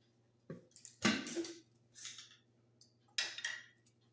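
Kitchen handling noises: a few short clattering, rustling sounds of utensils and containers, the loudest about a second in, over a steady low hum.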